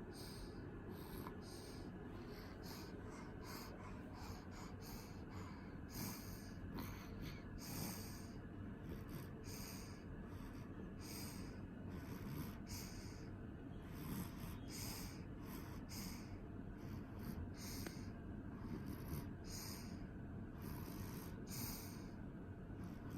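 Snoring during sleep: quick, hissy breaths repeating irregularly about twice a second over a steady low background hiss.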